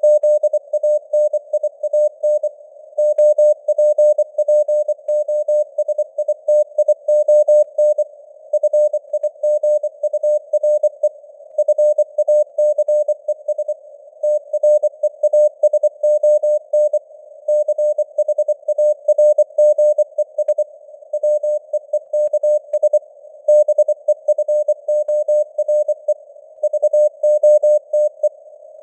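Morse code sent at 24 words per minute: one steady tone keyed on and off in dots and dashes, with short gaps between words, over a narrow band of simulated radio hiss. The signal strength varies slightly, imitating radio fading (QSB).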